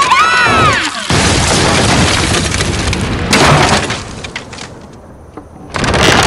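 Cartoon crash of wooden stage scenery collapsing: a long clattering smash that dies away after a few seconds, with a second loud crash starting near the end.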